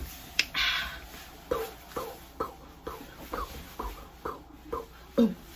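A woman's voice making short, rhythmic, falling vocal sounds, about two a second, as if humming or beatboxing a beat. A brief rush of noise comes just under a second in.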